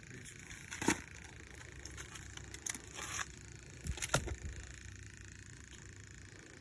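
A few scattered short knocks and clatters, about a second, three and four seconds in, over a faint steady background hum.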